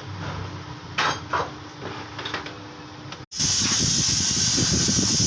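A couple of brief knocks in a quiet room, then, after an abrupt cut, a loud steady gas hiss with a rough low rumble under it.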